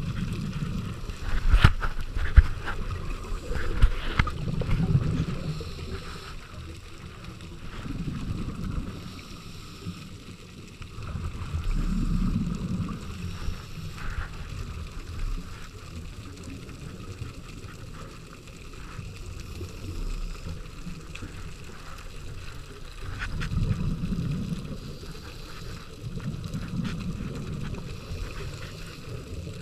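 Scuba diver's exhaled regulator bubbles, heard underwater, coming as low rumbling swells every few seconds in time with breathing. A few sharp knocks come in the first few seconds.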